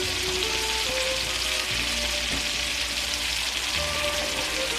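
Butter and garlic sizzling in a pot on high heat: a steady, even frying hiss.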